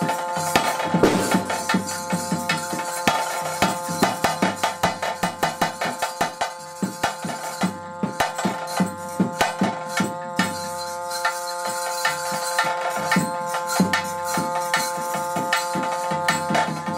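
Bhuta kola ritual music: drums beaten in quick strokes over a steady held tone.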